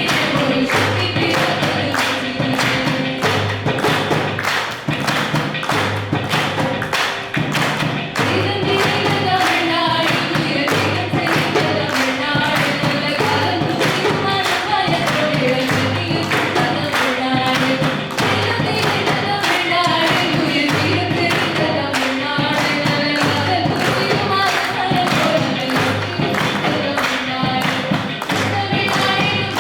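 Devotional song performed by a small music group: singing over a steady percussion beat and a repeating bass line.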